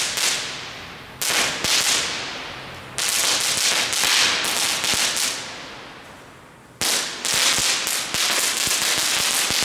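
Small category 1 ground firework burning on asphalt, sputtering in abrupt noisy spurts that each start suddenly and fade over a second or so: one at the start, a short cluster about a second in, a longer spurt about three seconds in, and a rapid flickering run in the last three seconds.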